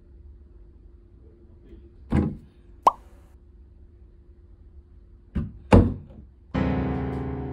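Three dull thumps and a very short high squeak, then a ringing, gong-like music note starts suddenly about a second before the end and slowly fades.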